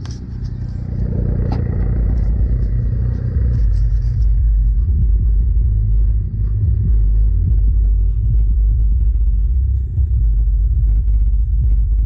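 Pioneer car subwoofer in the trunk playing the heavy bass of a trap song. Heard up close, it comes through as a deep, pulsing rumble, and the higher parts of the music drop away about four seconds in.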